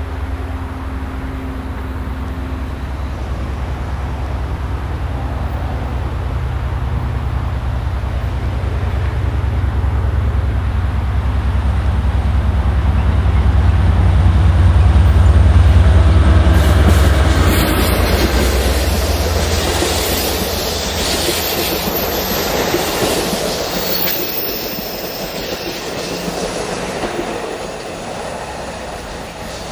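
Amtrak Pacific Surfliner passenger train led by an F59PHI diesel-electric locomotive, approaching and passing at speed. The locomotive's deep engine drone builds to its loudest about halfway through, then gives way to the wheel noise of the passing bilevel cars, which fades near the end.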